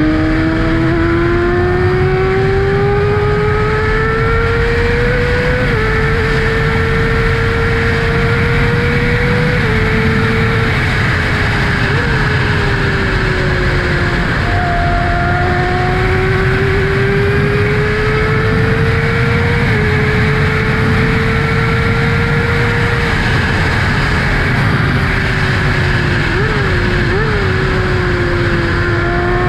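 2012 Kawasaki ZX-6R inline-four running through its M4 Tech 1 slip-on exhaust while riding: the engine note climbs slowly and eases back several times, with short sharp jumps in pitch about twelve seconds in and twice near the end. Heavy wind rush on the microphone runs underneath.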